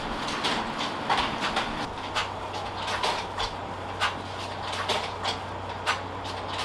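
Restaurant kitchen clatter: irregular knocks and clinks of utensils and cookware, with a steady low hum that starts about two seconds in.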